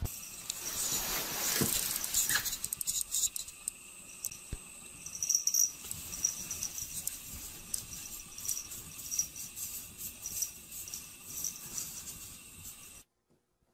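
A cat clawing and digging at a wall of packed snow: a run of light scratching and crunching, loudest in the first couple of seconds, that cuts off suddenly near the end.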